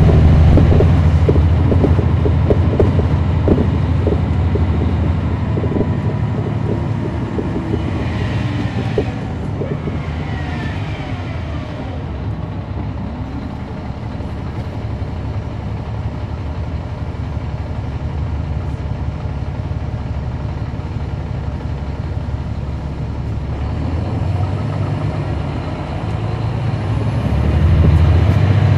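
Caterpillar C13 diesel engine and ZF Ecomat automatic transmission of a NABI 416.15 transit bus, heard from inside at the rear. The engine runs loud under power at the start and eases off through the middle, with a few rising and falling whines about ten seconds in. It pulls hard again near the end.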